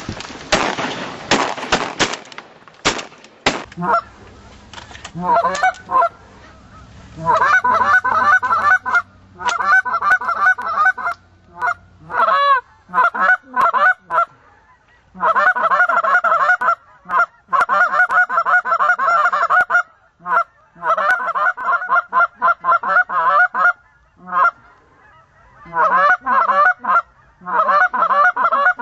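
Goose honks and clucks in rapid runs, coming in bouts a few seconds long with short breaks between them, after a burst of loud rustling in the first two seconds.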